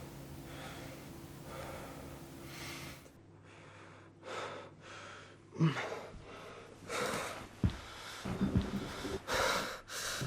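A person breathing heavily and gasping, the breaths coming louder and quicker from about four seconds in. Before that there is a low steady hum that cuts off about three seconds in.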